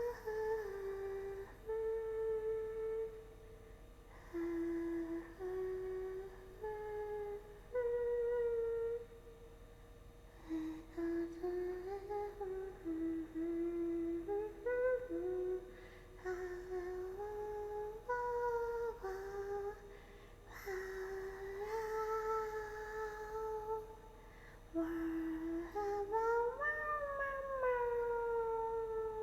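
A young woman humming a wandering tune in short held notes with brief pauses between them, ending with a long note that slides up and then down.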